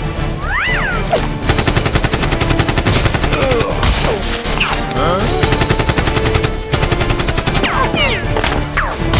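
Rapid automatic-gunfire sound effects in two long bursts, one starting about a second and a half in and the other about five seconds in, over background music.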